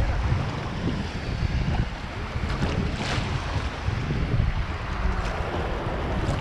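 Wind buffeting the microphone with a low rumble, over the steady wash of shallow seawater and surf.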